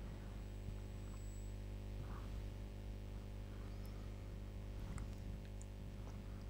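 Steady low electrical hum, with a few faint light taps as pear slices are laid into a salad bowl with a spoon.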